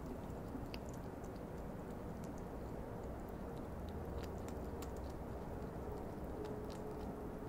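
European hedgehog chewing dry food pellets close up, making faint irregular crunching clicks.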